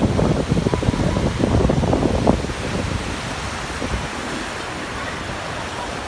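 Choppy sea surf washing through shallow water, with wind buffeting the microphone. The rumble eases about two seconds in, leaving a steadier hiss of water.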